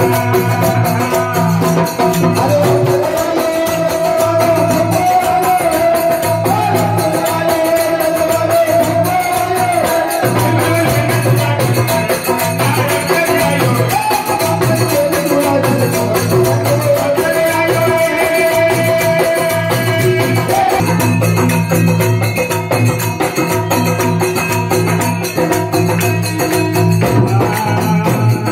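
Rajasthani devotional bhajan music: a harmonium playing the melody over a pulsing drum beat, with hand clapping and jingling percussion keeping the rhythm.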